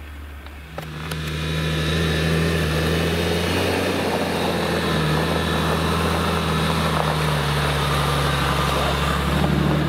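Mercedes G-class 3-litre diesel engine running steadily at low revs as the vehicle drives slowly close by. The engine drone swells in about a second in, then holds level.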